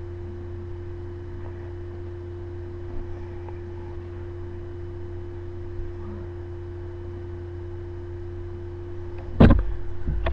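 Steady low hum with a fainter, higher steady tone over quiet room noise, broken near the end by one loud thump.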